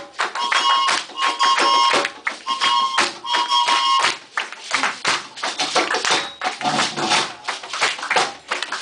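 Live hand-drum music with fast, dense drum strokes and clapping. For the first four seconds a high-pitched instrument sounds short held notes in a repeating rhythm over the drums; after that only the drumming and clapping continue.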